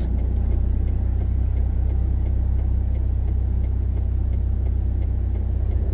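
Car interior noise while driving: a steady low engine and road rumble, with faint, evenly spaced ticks over it.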